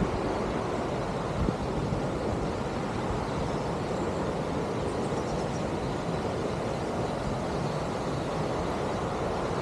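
Steady rushing of falling water from Aira Force waterfall.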